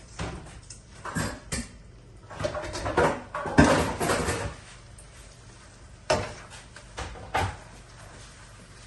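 A cooking utensil knocking and scraping against a pot: a few scattered knocks, a longer stretch of stirring and scraping in the middle, and two sharper knocks near the end.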